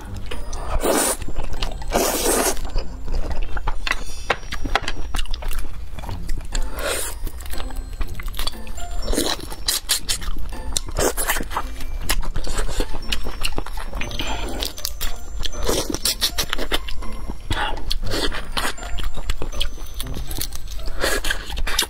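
Close-miked eating sounds of noodles and boiled crayfish. Noodles are slurped in two long sucks in the first few seconds. Then come chewing and the crackle of crayfish shells being cracked and peeled by gloved hands, with many small clicks and crunches throughout.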